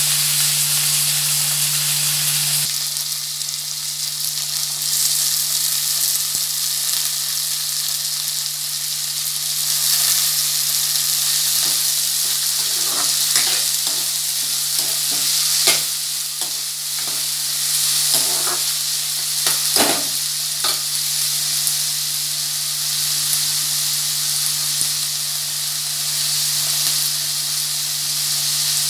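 Cut flat beans (chikkudukaya) sizzling in hot oil in a steel pan, with a steady frying hiss. A spatula stirs them and scrapes and knocks against the pan a few times around the middle. A steady low hum runs underneath.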